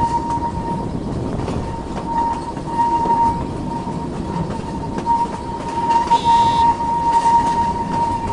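Narrow-gauge electric train running, heard from a carriage window: a steady rumble of the wheels on the track, with a high, steady whine that swells and fades. A brief, higher tone sounds about six seconds in.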